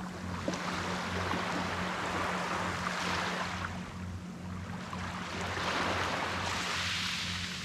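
Ocean waves washing up on a beach, surging and ebbing in two broad swells, with a steady low hum underneath.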